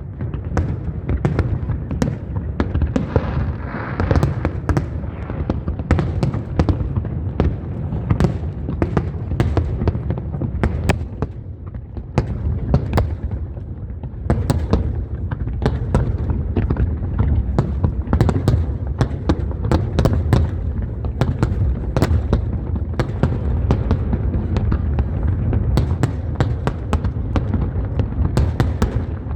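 Fireworks display: a dense, unbroken run of sharp bangs and crackles, many a second, over a deep rumble of booming shells.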